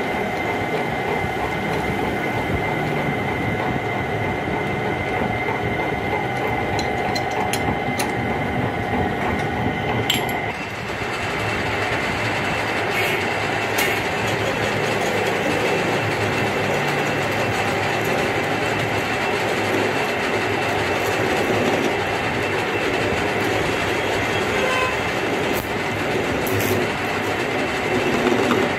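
Metal lathe running: a steady mechanical drone with a whine from the spinning chuck and gearing. About ten seconds in the sound shifts and grows denser, with a few sharp clicks.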